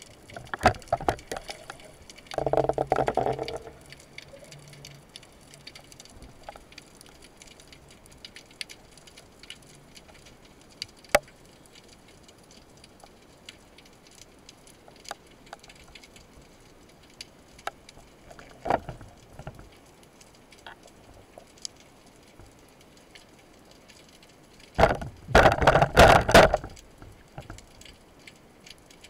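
Underwater sound picked up by an action camera in its housing on a freedive: scattered sharp clicks and crackles, with two louder rushing stretches, one about three seconds in and one near the end.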